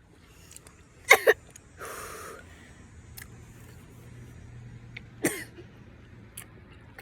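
A person coughing while eating an extremely sour candy: a quick double cough about a second in, a short breathy exhale just after, and one more cough near the end.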